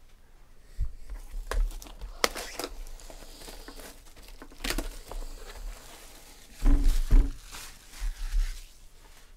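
Clear plastic shrink-wrap being torn and peeled off a sealed trading-card box, with irregular crinkling and crackling. A louder bout of rustling with a couple of handling knocks comes about two-thirds of the way through.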